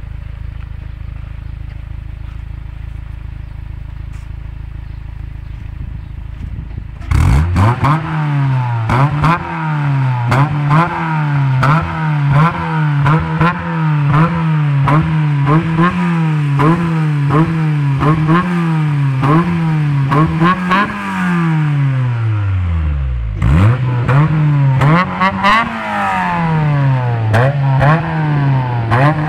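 Honda S2000's four-cylinder engine idling steadily, then, about a quarter of the way in, revved hard in quick repeated throttle blips, the pitch climbing and falling about once a second. Near the end the revs sink almost to idle before the blipping starts again.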